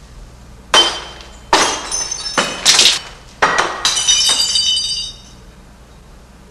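Drinking glasses smashing one after another, about six crashes in three seconds, with shards tinkling for about a second after the last.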